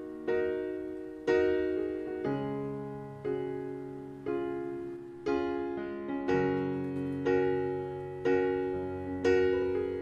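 Background piano music: a chord struck about once a second, each left to ring and fade before the next.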